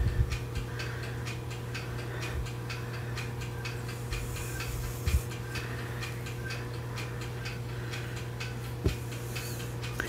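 Faint, steady, regular ticking over a low steady hum, with a few soft bumps.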